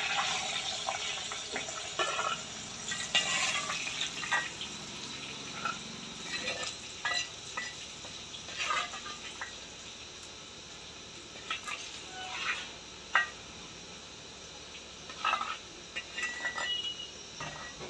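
Hot oil sizzling in a black kadai as fried dried mutton pieces are lifted out with a steel spoon, with frequent metal clinks of the spoon against the pan and a steel plate. The sizzling eases off as the pan empties.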